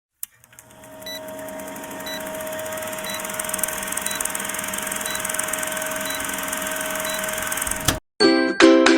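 Steady electrical-sounding hum with a faint high tick about once a second. It swells over the first second or so and cuts off suddenly near the end, and light chiming music starts just after.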